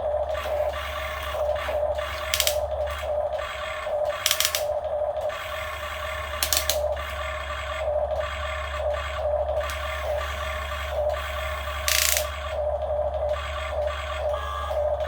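Radio-controlled model excavator at work: its motors and gears whine steadily, swelling and easing unevenly as the controls are worked, over a low hum, with a few short scraping clatters.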